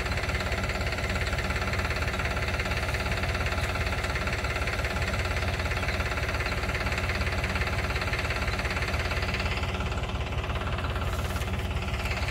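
Farmtrac 45 tractor's diesel engine running at low, steady revs while driving a crop-spray pump. Its speed holds even with no hunting.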